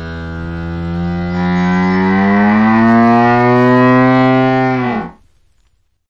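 Hippopotamus giving one long, deep bellow of about five seconds, its pitch rising slightly before dropping as it cuts off.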